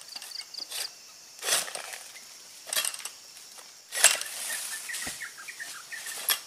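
Tiger888 egrek, a long-poled palm sickle, slashing into oil palm frond stalks: four separate rasping cuts, the loudest about four seconds in, followed by the rustle of the severed frond coming down.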